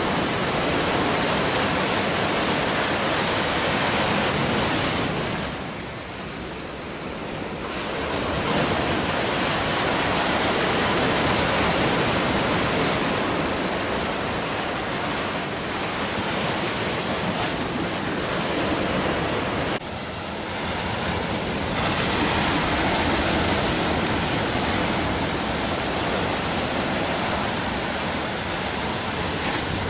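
Sea surf breaking on a rocky shore: a steady rush of waves that eases off briefly twice before swelling back.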